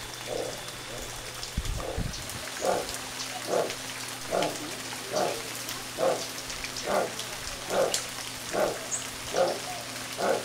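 Guatemalan black howler monkey giving a steady series of short, deep grunts, a little more than one a second.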